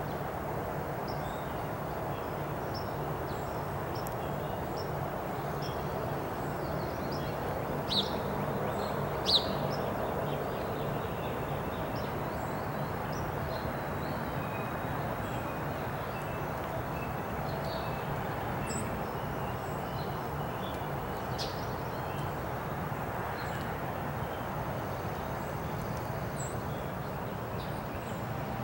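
Outdoor city ambience: a steady hum of distant traffic with songbirds chirping over it. Two louder sharp chirps come about eight and nine seconds in.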